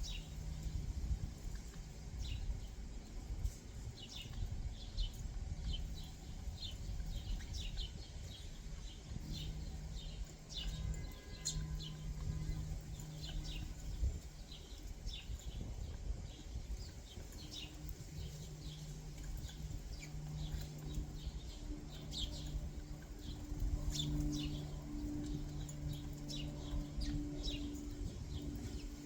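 Small backyard birds chirping, many short high notes scattered throughout, over a steady low hum and rumble.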